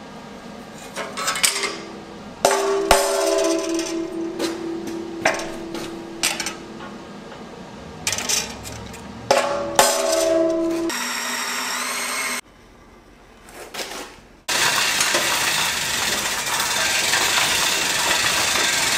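A hammer strikes a punch on a sheet-steel tabletop, with lighter taps and two hard blows that leave the steel plate ringing for a few seconds. Near the end a steady wash of noise takes over.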